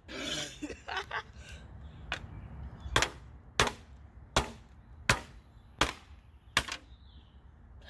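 Hammer blows on a printer's plastic parts: a crackly crunch at first, then a run of sharp, regular strikes, about one every three-quarters of a second.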